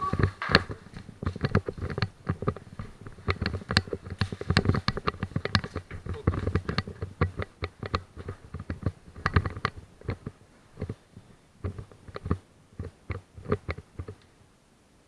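A rapid, irregular run of sharp clicks and knocks, dense at first and thinning out over the last few seconds.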